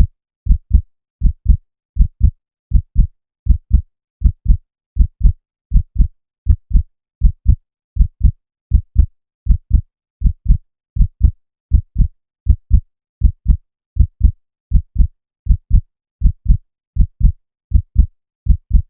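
Human heartbeat sound effect: a steady lub-dub, two low thuds close together, repeating evenly at about 80 beats a minute.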